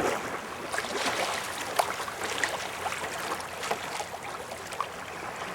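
Water splashing and trickling around a sea kayak as it is paddled, with irregular small splashes from the paddle blades.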